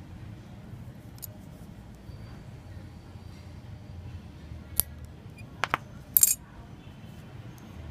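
Metal nail clipper snapping shut to trim the tag end of a fishing line at a freshly tied knot: a few sharp metallic clicks, the loudest about six seconds in.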